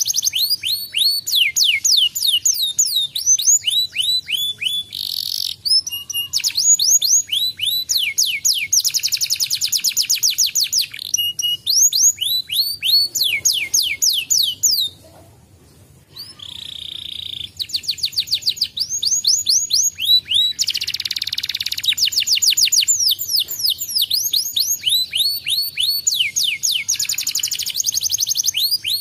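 Domestic canary singing: long runs of fast, tightly spaced trills made of repeated high sweeping notes, with a brief pause about halfway through.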